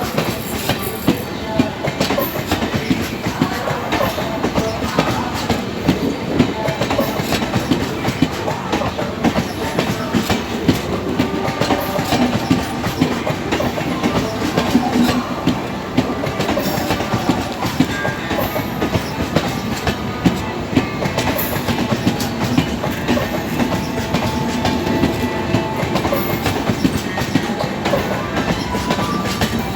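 Passenger train coaches rolling past with a steady clatter of wheels on the rails.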